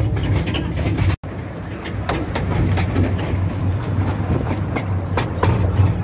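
Steam train running: a steady low rumble with frequent irregular clicks and knocks. The sound cuts out completely for an instant about a second in.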